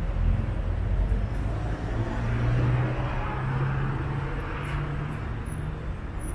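A motor vehicle passing along the street: engine hum and tyre noise swell to a peak around the middle, then fade, over a low outdoor rumble.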